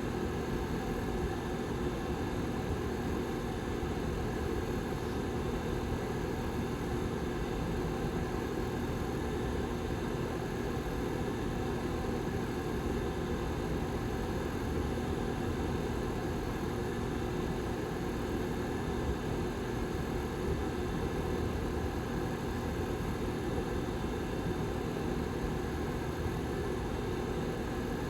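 Rear fan of a Lasko 755320 tower heater running steadily: an even rush of air with a constant hum in it.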